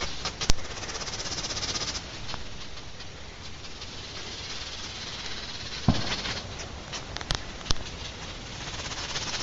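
Steady, high, fast-pulsing hiss of outdoor ambience, like insects trilling, broken by a sharp click about half a second in, a thump near six seconds and two quick clicks a little after seven seconds, as from camera handling or footsteps.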